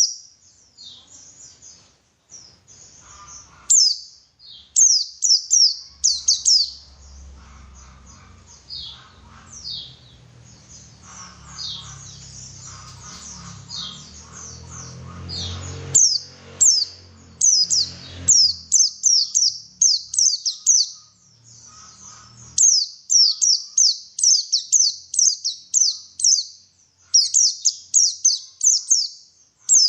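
White-eye (pleci) song: quick runs of short, high chirps, each sweeping downward, repeated in bursts of three to six notes across the whole stretch. A low rumble sits under the song for a stretch in the middle.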